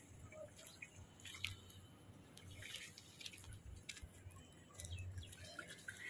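Faint, irregular wet clicks and squelches of footsteps on a flooded, muddy street, with a low rumble underneath.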